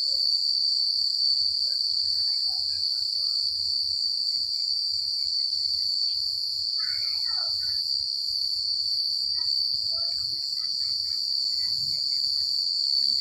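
Crickets chirping in a continuous, unbroken high-pitched chorus, with faint scattered calls from other animals lower down.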